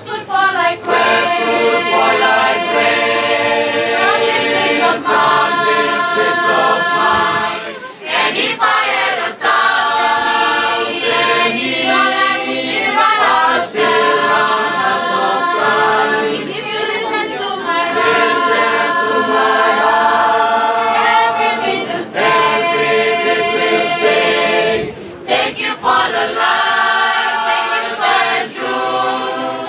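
Youth choir of mixed voices singing a gospel song a cappella in harmony, holding long chords with short breaks between phrases.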